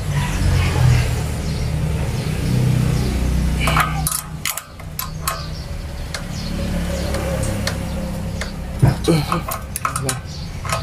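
Small generator engine running with a steady low drone that cuts out briefly about halfway, with a few sharp clicks.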